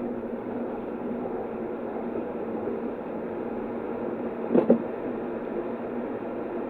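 Cookware being handled in a kitchen: two sharp knocks in quick succession about four and a half seconds in, over a steady hum and hiss.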